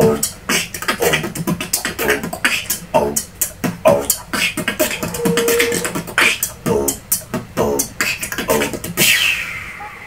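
Vocal beatboxing: a fast rhythm of mouth-made kick, snare and hi-hat clicks mixed with short voiced tones, with a brief held note midway and a long hiss near the end.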